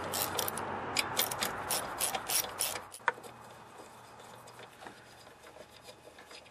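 Socket ratchet clicking in quick, irregular runs as it backs out the 10 mm valve-cover bolts on a lawnmower's overhead-valve engine. The clicking stops about three seconds in, and after that only faint ticks of tool handling remain.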